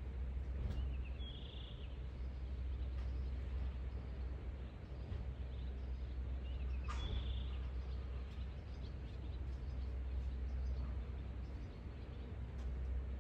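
Steady low background rumble, with a bird giving a short high chirp twice, about a second in and again about seven seconds in.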